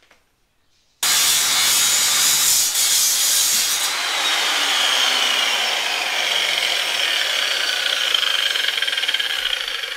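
Angle grinder with a cut-off disc cutting through a steel motorcycle subframe tube. It starts abruptly about a second in as a loud, harsh, steady cutting noise, with a whine that falls slowly in pitch, and eases off near the end.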